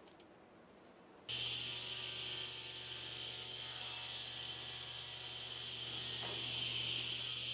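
A woodworking power tool working wood comes in abruptly about a second in and runs steadily, with a constant low motor hum under a loud hiss.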